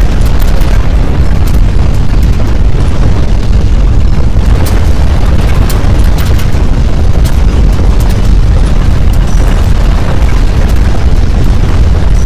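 Loud, continuous deep earthquake rumble with scattered crackles and clicks, the sound of strong ground shaking.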